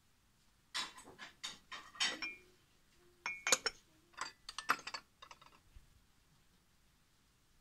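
Porcelain cups and saucers clinking against each other as they are handled and moved on a shelf: a quick run of sharp clinks, some with a brief ring, starting just under a second in and stopping about five seconds in.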